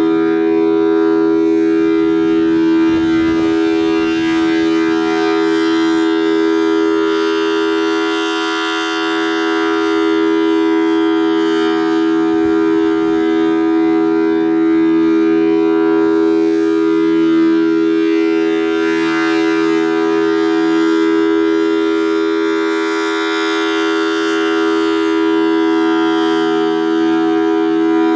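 Federal Signal Thunderbolt 1000T outdoor warning siren with a 4/5-port rotor sounding the steady full alert signal: a loud, unbroken two-note chord. Its sound grows brighter and duller as the rotating horn sweeps round.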